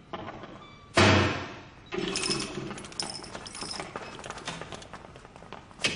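A loud thud about a second in, followed by several seconds of clattering and rattling with many small clicks.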